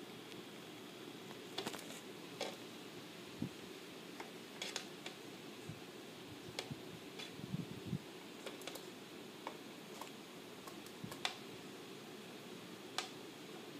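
Light, irregular clicks and taps, about a dozen, over a steady low room hum, with two soft low thumps about halfway through.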